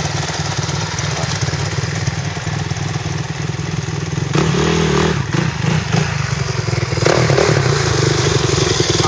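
Dirt bike engines running: a steady, rapid low firing beat at first, then louder and revving from about four seconds in as the bikes ride off on the trail, and louder again near the end.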